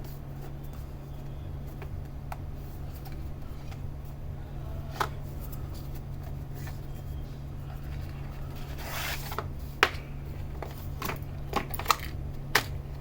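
Hands handling a small plastic vape pod device: scattered light clicks and rubbing that get busier in the second half, with one sharper click about ten seconds in, over a steady low hum.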